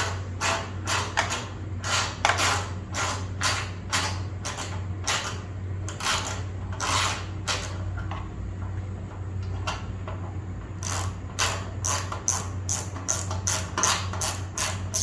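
Hand socket ratchet clicking through repeated short strokes as a bolt is worked, two to three clicks a second, with a pause of a couple of seconds past the middle.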